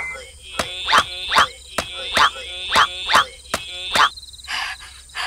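An axe chopping into wood: about ten sharp knocks, two or three a second, stopping about four seconds in. Each chop is followed by a short high-pitched sound, over a steady background of chirping crickets.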